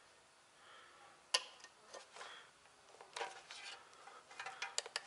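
Light clicks and taps of multimeter probes being handled against the pins of a crankshaft position sensor to measure its resistance: one sharp click about a second in, then clusters of small clicks.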